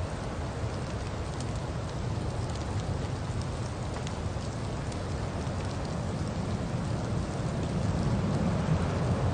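Steady rumble and hiss of a Mitsubishi car driving through a snowstorm, with tyres on the wet, snowy road and faint ticks. The noise grows a little louder near the end.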